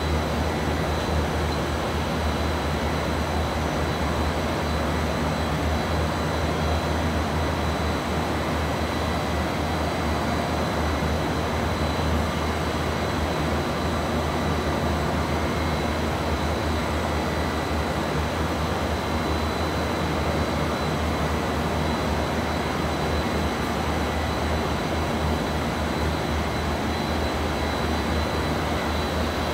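Three-layer blown film co-extrusion line running: a steady industrial machine noise with a low hum and a thin, constant high whine.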